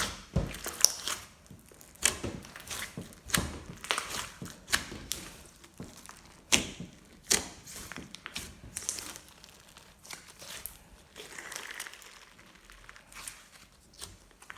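Hands working glossy slime: irregular sticky clicks and pops as it is pressed, stretched and poked, a few a second and thinning out toward the end.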